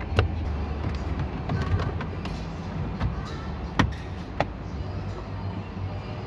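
Sharp clicks and taps of plastic steering column trim being handled and snapped back into place, three clear ones spread over a few seconds, over a steady low hum.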